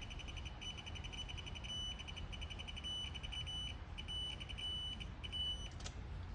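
Digital torque wrench adapter beeping: quick pulses that run together into short steady tones several times, the signal of a bolt being pulled up to its set torque. The beeping stops with a click near the end.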